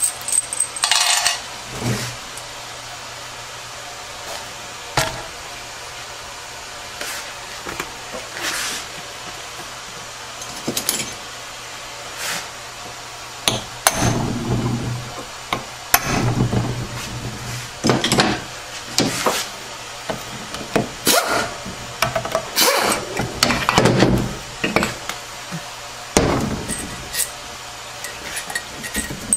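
Scattered metal clinks and knocks as the aluminium and steel parts of a 6R80 transmission oil pump are handled, separated and set down on a workbench during disassembly, busiest in the second half.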